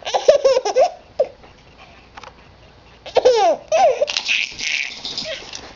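A baby laughing hard in high-pitched bursts: a run of giggles in the first second, a short pause, then another burst of laughter about three seconds in that trails off into breathy laughs.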